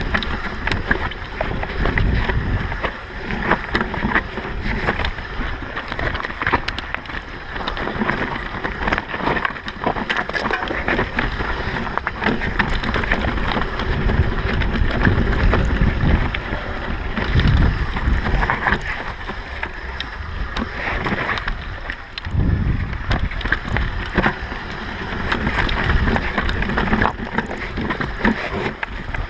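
Mountain bike riding down a dirt trail: wind rushing over the action-camera microphone in surging gusts, with tyre noise and frequent rattles and clacks from the bike over bumps.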